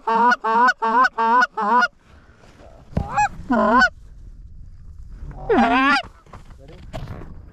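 Loud Canada goose honks: a fast run of about three honks a second for the first two seconds, then a few single honks and pairs with gaps between.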